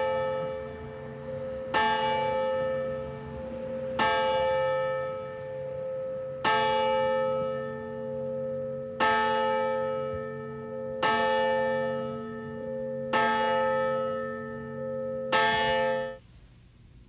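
A single church tower bell tolling, struck about every two seconds with each stroke ringing on into the next. The ringing cuts off sharply near the end.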